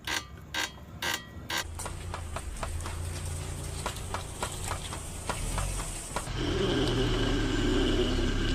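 A few loud knocks, then rapid light mechanical ticking over a low hum; about six seconds in it changes to a steadier running sound with a held tone.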